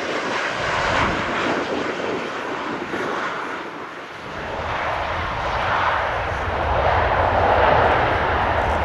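Boeing 737-700 jet airliner touching down and rolling out, its two CFM56 turbofan engines making a steady rushing noise. The noise dips briefly midway, then swells louder with a low rumble and peaks near the end.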